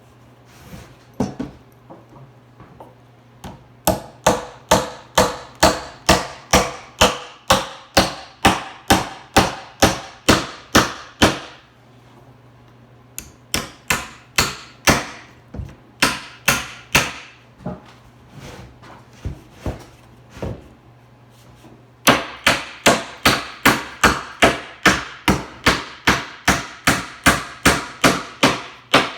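Hammer driving nails into wood in three fast, even runs of about three blows a second, with short pauses between runs and a few lighter taps before the first.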